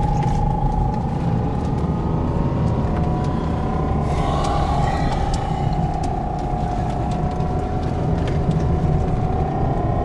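Car driving on a winding mountain road, heard from inside the cabin: a steady low engine and tyre rumble with a thin whine that drifts slowly up and down in pitch. About four seconds in comes a brief rush of hiss.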